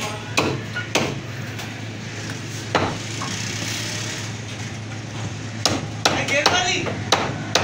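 Butcher's cleaver chopping goat meat on a wooden chopping block: sharp chops, a few spaced apart, then coming faster in the last two seconds. A steady low hum runs underneath.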